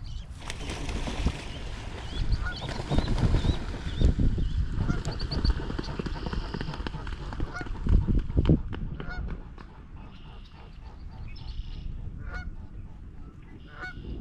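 Geese honking again and again during a fight with a swan. A loud, noisy commotion runs under the calls for the first eight or nine seconds, then it quietens while the honking goes on.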